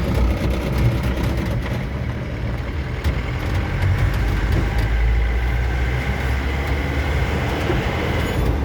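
Car engine and road noise heard from inside the cabin while driving, a steady low rumble. A faint steady high tone comes in about midway and fades near the end.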